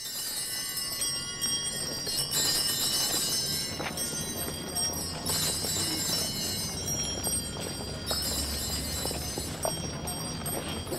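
Bells ringing steadily, with footsteps of a walking crowd.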